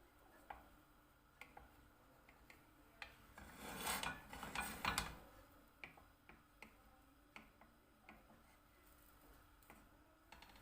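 Light clinks and taps of kitchen utensils and dishes, with a louder noisy stretch of handling about three and a half seconds in that lasts about a second and a half.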